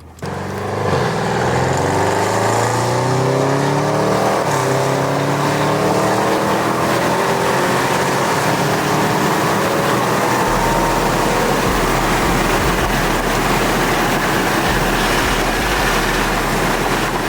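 Audi RS6's 4.0-litre twin-turbo V8 on aftermarket downpipes and a full exhaust, accelerating hard at full throttle from the start. Its loud engine note climbs in pitch and steps through several upshifts.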